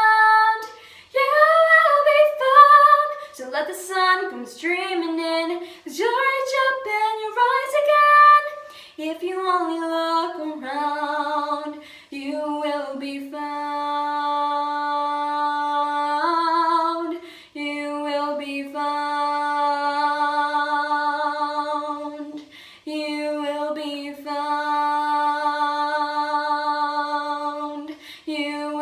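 A teenage girl singing solo and unaccompanied: a quick run of moving notes for the first several seconds, then long held notes in phrases of about five seconds each.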